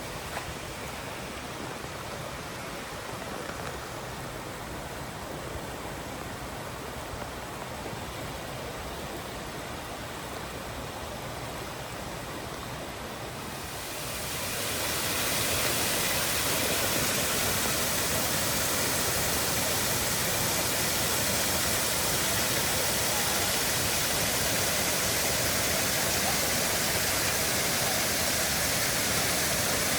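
Shiraito Falls' water rushing steadily. About fourteen seconds in it grows louder and brighter within a second or two, then holds steady.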